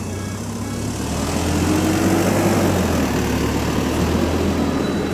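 A motor vehicle's engine running close by as it passes: a low steady hum with a rush that grows louder to a peak about two seconds in, then fades.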